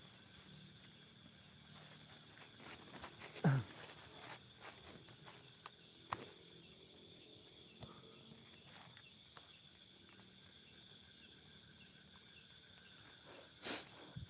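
Faint, steady chirring of night insects in wet forest, with a few scattered clicks and knocks. A short falling sound comes about three and a half seconds in, and a sharp knock near the end.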